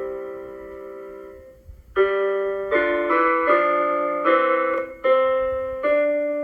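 Piano being played: a held chord dies away, then after a short break about two seconds in, chords are struck one after another at a steady pace.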